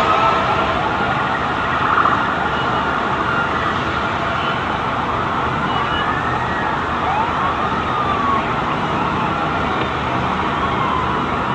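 Several emergency-vehicle sirens wailing, their pitches rising and falling and overlapping, over a steady background noise.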